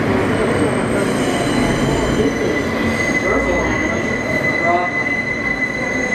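An R160 subway car running, heard from inside the car: a steady loud rumble. About halfway through, a high, steady wheel squeal sets in and holds.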